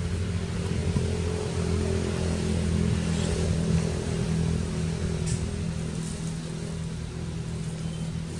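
Steady low engine hum, as of a motor running nearby, holding an even pitch throughout.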